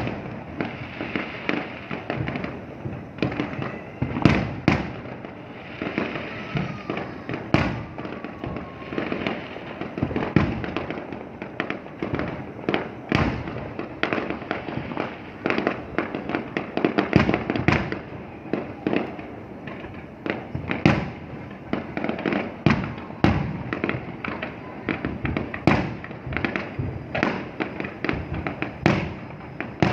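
Fireworks display: shells bursting with sharp bangs every second or so at irregular intervals, over a continuous crackle of further bursts.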